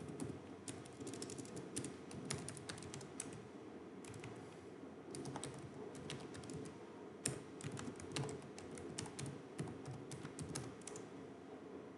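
Computer keyboard typing: runs of quick keystroke clicks in several bursts with short pauses, and one louder key click about seven seconds in, over a low steady background hum.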